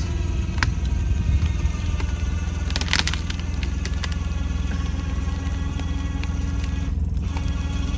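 A side-by-side's engine running under a steady hum while its winch whines, pulling a log over. There are sharp cracks of wood about half a second in and again about three seconds in.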